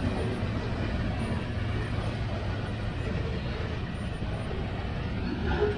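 Covered hopper cars of a freight train rolling past on the rails, a steady low rumble of wheels on track.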